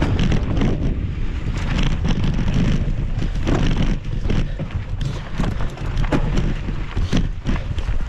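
Wind buffeting the microphone over the rumble of a mountain bike descending a rough dirt singletrack, with many short clatters and knocks as the bike runs over stones and bumps.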